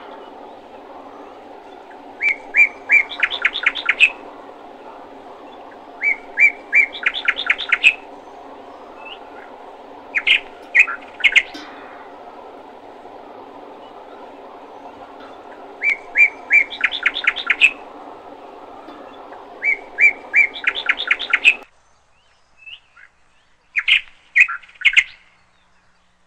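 A songbird singing short repeated phrases, each a few clear chirps running into a quick trill, about six times with gaps of a few seconds. Under it runs a steady hum that stops a few seconds before the end.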